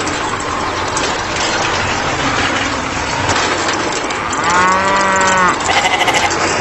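A cow mooing once, a single call of about a second that rises and falls slightly in pitch, followed straight away by a short, rapidly quavering call, over a steady background noise.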